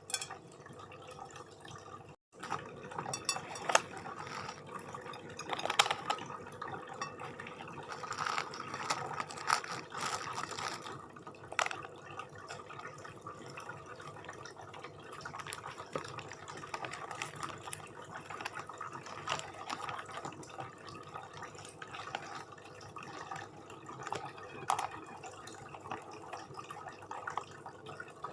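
Close-miked mukbang eating sounds: wet chewing and mouth sounds with scattered clicks and taps of utensils, as satay and rice with gulai curry are eaten. The sound drops out briefly about two seconds in.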